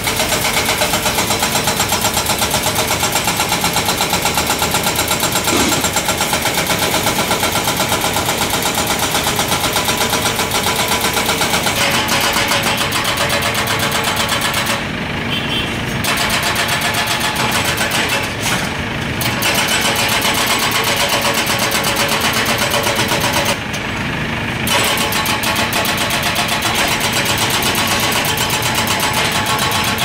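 Heavy diesel machinery running with a fast, even clatter. The clatter eases briefly three times around the middle.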